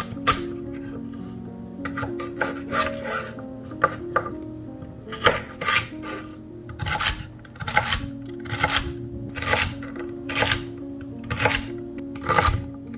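Chef's knife cutting celery stalks on a bamboo cutting board: lengthwise slices at first, then dicing, each cut ending in a knock of the blade on the board, about two cuts a second in the second half.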